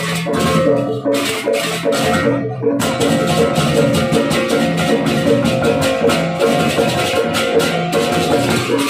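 Balinese gamelan procession music: rapid clashing cymbals over ringing gong and metallophone tones and drums, in a steady driving rhythm.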